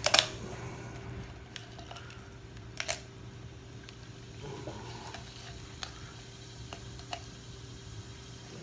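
Kitchen shears cutting along a raw chicken's backbone: a few sharp snips and crunches, the loudest right at the start and another about three seconds in, with fainter ones later, over a steady low hum.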